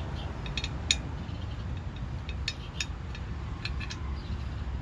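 A few light, irregular metallic clicks as a tiller mule-drive V-belt pulley assembly is handled and turned by hand. The sharpest click comes about a second in. A steady low rumble runs underneath.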